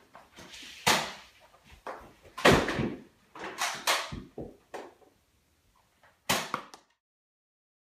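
A handful of sudden bumps and thuds from children scuffling on a wooden floor, the heaviest about two and a half seconds in; the sound cuts off abruptly near the end.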